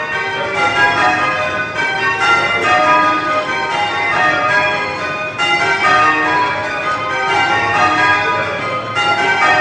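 Ring of eight church bells in change ringing, ringing spliced methods: the bells strike one after another in a steady stream of overlapping, ringing tones.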